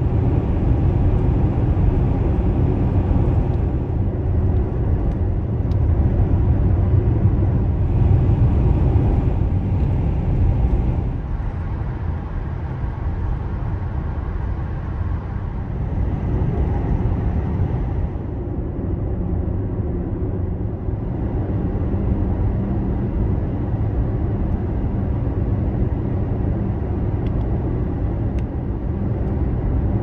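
Car driving along a road: steady road and tyre noise with a low rumble, swelling and easing a little as the road changes.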